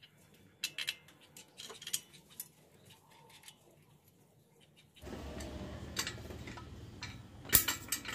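Light metallic clicks and taps from nuts and bolts being fitted and tightened on the flange that joins an electric motor to its gearbox. The clicks come irregularly, in a cluster in the first few seconds. About five seconds in the background hiss gets louder, and the sharpest click comes near the end.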